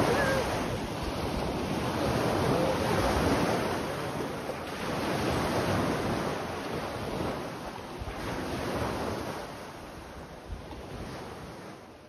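Waves breaking on a beach with wind noise on the microphone, steady at first and then fading out gradually through the second half.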